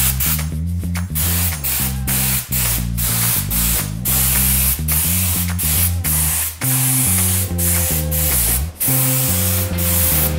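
Compressed-air paint spray gun hissing as it sprays two-component clear coat onto a bike frame, in repeated passes with short breaks where the trigger is let off. Background music plays underneath.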